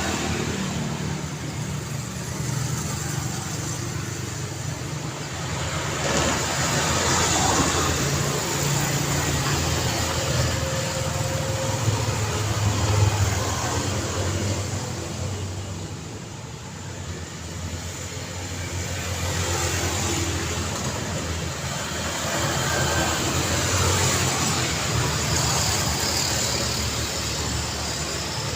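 Road traffic passing on a city street: a steady rumble of car engines and tyre noise that swells as vehicles go by, with a lull about two-thirds of the way through.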